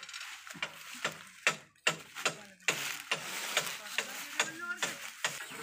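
Dry sugarcane leaves crackling and crunching: a run of sharp, irregular clicks.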